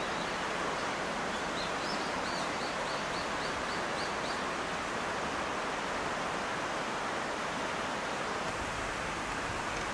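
Steady rushing of a shallow, rippling river flowing over stones. Between about one and a half and four and a half seconds in, a bird gives a quick run of about nine short high chirps.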